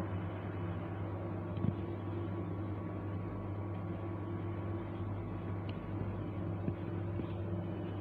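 A steady machine hum, a motor running at an even pitch, with a few faint small knocks.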